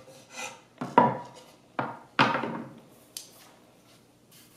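Plywood boards knocked and set down against each other and on a wooden shelf top: a few sharp wooden knocks, the loudest about one second and two seconds in, with light scraping handling between them.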